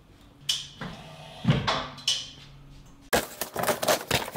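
A few knocks and thumps, then from about three seconds in the crackle and scrape of cardboard box flaps being pulled open.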